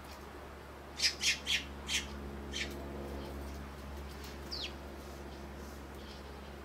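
Eurasian tree sparrows chirping: a quick run of four sharp chirps about a second in, one more shortly after, and a single falling call a few seconds in, over a steady low hum.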